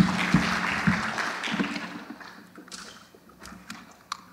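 Audience applause fading out over the first two seconds, with several sharp knocks at the start, the first the loudest. Then a steady low hum and scattered light clicks and taps.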